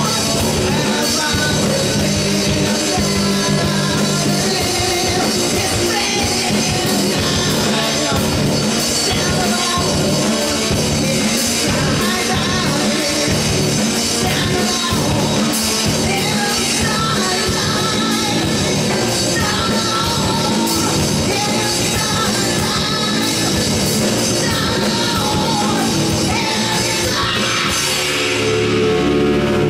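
A live rock band playing: drums keeping a steady beat under electric guitars and bass, with a singer. Near the end the drumming drops away and sustained chords ring out.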